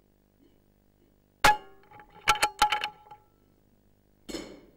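A sharp metallic clank, then a quick run of ringing metal clinks about a second later, and a duller, softer knock near the end.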